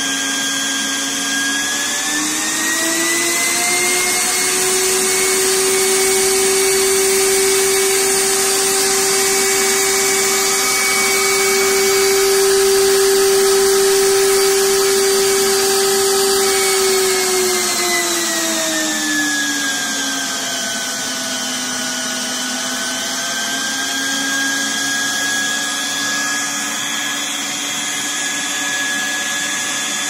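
Home-built central vacuum's two stacked vacuum-cleaner motors running under load during a suction test, a loud steady whine with a hiss. The pitch rises about two seconds in, holds high for some fifteen seconds, then glides back down and settles lower.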